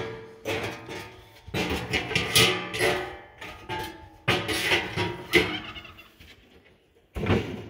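Stainless steel hotel pans clanking and rattling against each other and the steel rim of the pan well as they are lifted out and set back in, a string of knocks, each one ringing on briefly.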